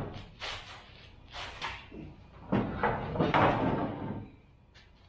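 Heavy steel hydraulic forklift cylinder being lifted and shoved onto a steel-topped workbench: a series of metal knocks and scrapes, the longest and loudest about two and a half to four seconds in.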